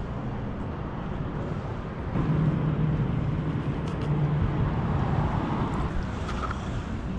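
Low, steady rumble of motor traffic crossing the road bridge overhead. It swells louder for about three seconds from about two seconds in, with a couple of faint clicks.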